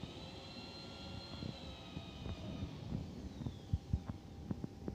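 Electric stacker with a paper-roll clamp, its hydraulic pump motor whining while the mast lowers the clamped roll. The steady high whine falls in pitch after about three seconds, with scattered low knocks and clunks from the mast and clamp, more of them near the end.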